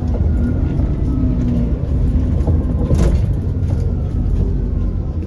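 Alexander Dennis Enviro400 Trident double-decker bus running, a steady deep rumble with a faint whine, and a single sharp knock about three seconds in.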